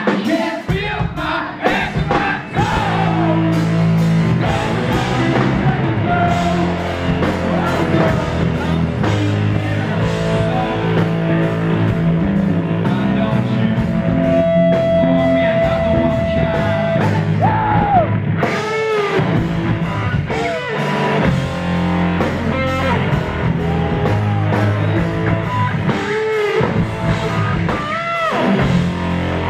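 Live rock band playing loudly: electric guitar and drums, with a man singing over them, the vocal lines coming in clearly from about the middle on.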